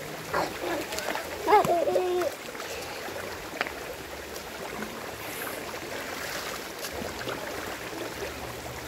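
Shallow rocky river running steadily, with a few small splashes from washing in the water. A short voice calls out about one and a half seconds in.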